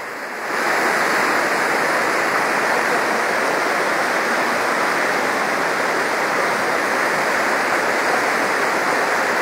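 Muddy floodwater rushing in a torrent over rocks, a steady, loud, even rush of water. Slightly quieter for the first half second, then constant.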